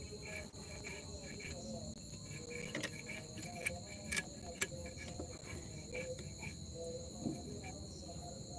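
Steady high-pitched chirring of night insects, with a few soft scraping clicks as small fish are scaled and cut against an upright fixed blade (bonti), and faint voices in the background.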